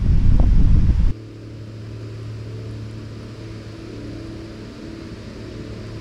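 Wind buffeting the microphone as a loud, gusty low rumble. It cuts off abruptly about a second in, leaving a much quieter steady hum with a low drone.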